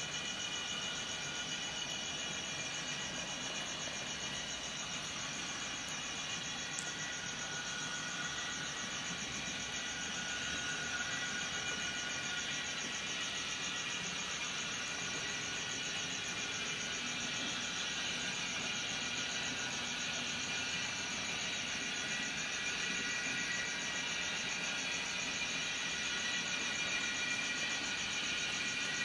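Märklin HO model BR 194 electric locomotive with an ESU sound module running with a loaded coal train: a steady mix of whining tones and a high fluttering hiss, growing slightly louder as the train approaches near the end.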